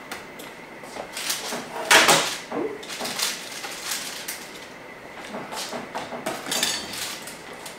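Kitchenware clattering: a baking tray and plate being knocked and set down on the counter while just-baked croissants are moved off the tray, a series of short clanks with the loudest about two seconds in.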